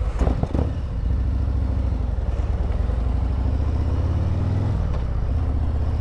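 Harley-Davidson Road Glide's V-twin engine running as the motorcycle rides on. The engine note shifts about a second in and again near five seconds.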